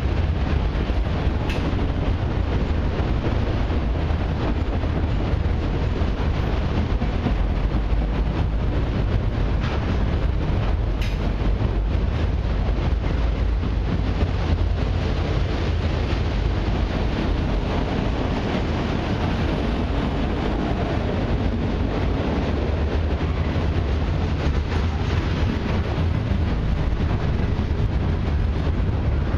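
Freight train's autoracks and boxcars rolling past, a steady rumble of steel wheels on rail.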